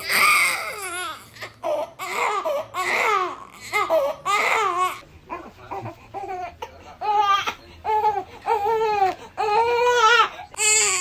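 Baby crying in a run of repeated wails: longer, higher wails first, then shorter cries about once a second.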